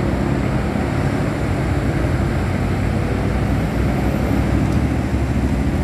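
Large intercity bus's diesel engine running close by as the bus pulls away, a loud, steady low rumble.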